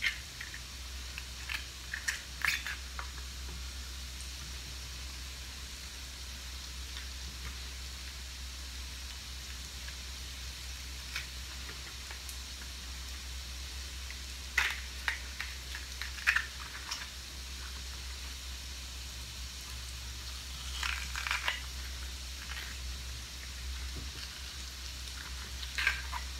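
Diced vegetables sizzling gently in a cast iron skillet: a steady, quiet hiss, with several short crisp clicks and snaps now and then.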